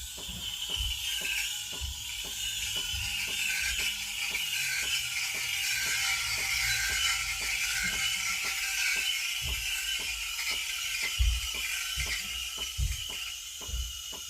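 Rapid, even mechanical clicking, about three clicks a second, over a hiss that swells through the middle, with a few low thumps.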